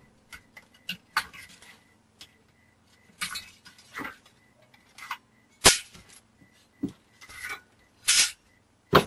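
Irregular clinks, taps and short scrapes of loose steel transformer-core laminations and the plastic winding bobbin being handled and set down on a bench as the core is stripped. The sharpest knocks come a little past halfway and right at the end.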